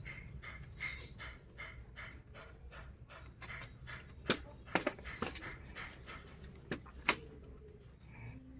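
Javanese goat munching snacks: rhythmic crunching chews about three a second, with a few sharper cracks near the middle.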